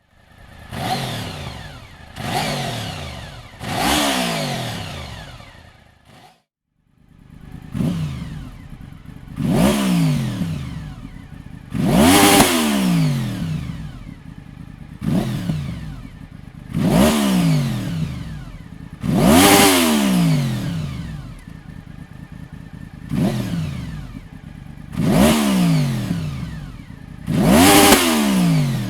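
Honda VFR 750 RC36's V4 engine through an aftermarket Dominator silencer, revved in a dozen or so sharp throttle blips from idle. Each rev rises quickly and falls back, with a short break about six seconds in.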